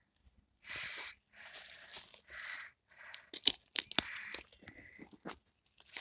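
Dry pine needles and twigs rustling and crackling. Soft hissy rustles come first, then a run of sharp snaps and crunches in the second half.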